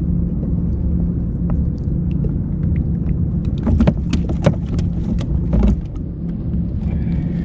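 A steady low hum, engine-like, with scattered sharp clicks and knocks, thickest around the middle.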